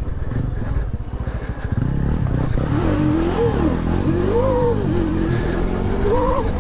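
Electric motor of a Bomb Moto B2 electric dirt bike whining under throttle while riding a trail, its pitch rising and falling several times from about two and a half seconds in, over a low rumble.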